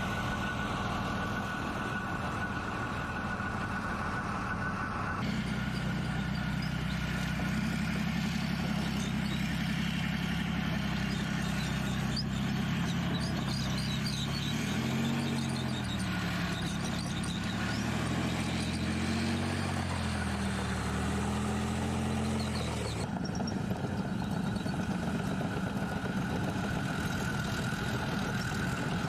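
Heavy diesel engine of an armoured tank recovery vehicle running steadily. About five seconds in the sound changes suddenly to a stronger, lower hum, and between about fourteen and twenty-three seconds in its pitch rises and falls several times before it changes back suddenly.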